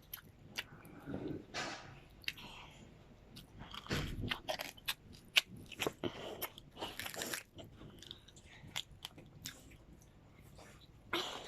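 Close-up chewing and biting into crispy oven-grilled pork skin and rice, with irregular crunches and smacking, busiest a few seconds in.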